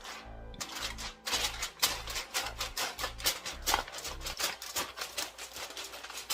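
Aluminium foil crinkling in a run of quick, irregular crackles as it is pressed down over a baking dish. Background music with a steady low beat plays underneath and stops about four seconds in.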